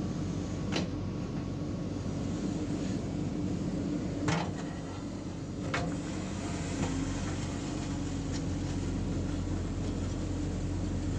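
Diesel engine of a JCB 3DX backhoe loader running steadily, with three sharp knocks about 1, 4.5 and 6 seconds in.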